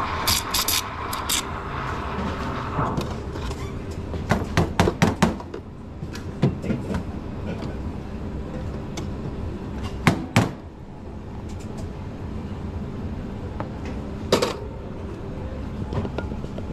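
Coffee-making clatter at a café counter. A steady rushing noise runs for the first few seconds, then comes a quick run of sharp knocks and clicks of equipment and crockery, with a few single knocks later.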